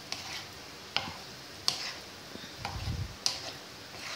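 A black kitchen utensil clicking and scraping against a white nonstick frying pan as tortellini in cream sauce are stirred: a few sharp clicks roughly a second apart, with a dull thump about three seconds in.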